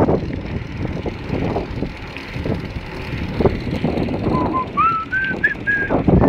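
Wind buffeting the microphone over the rumble of bicycle tyres rolling on rough, cracked asphalt, with occasional knocks from bumps. About four seconds in, a short whistle of a few notes climbs in pitch.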